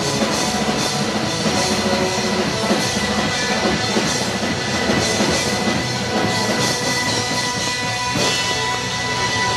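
A live rock band playing amplified electric guitars, electric bass and a drum kit, loud and continuous.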